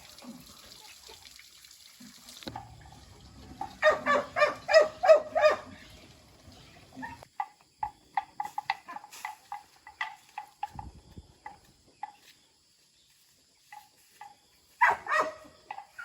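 Animal calls: a quick run of short, high calls about four seconds in and another near the end, with scattered short chirps in between.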